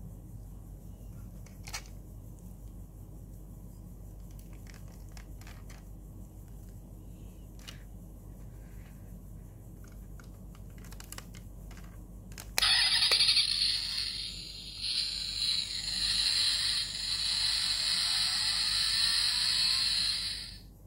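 A few light clicks and taps of the diecast model car's parts being handled, then, about two thirds of the way in, the model's built-in sound module plays a tinny engine sound effect through its tiny speaker, rising in pitch toward the end, for about eight seconds before cutting off suddenly.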